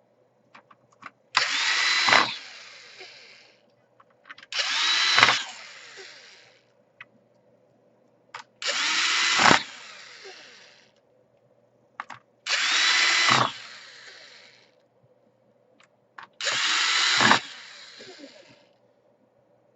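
Electric screwdriver driving the laptop's case screws: five short motor runs of about a second each, every few seconds, each ending as the screw seats, with small clicks between runs as the next screw is set.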